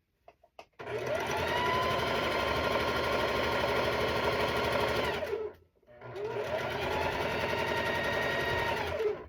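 Electric sewing machine stitching a quilt seam in two runs: a few clicks, then the motor speeds up, stitches steadily for about four and a half seconds, slows and stops briefly, then runs again for about three seconds and slows to a stop.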